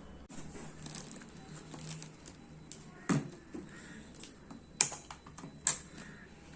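Hard plastic clicks and handling noise of an action camera's waterproof housing as the camera is unclipped and taken out of it, with a few sharp clicks about three, five and nearly six seconds in.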